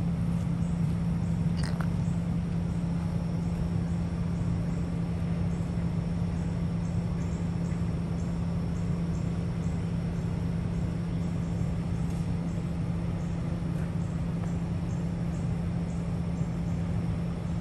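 Semi truck's diesel engine idling steadily, a low even rumble, with a faint regular ticking above it.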